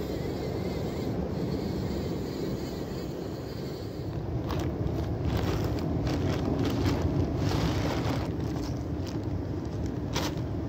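Steady rushing wind on the microphone mixed with surf, with a few short clicks or knocks in the second half.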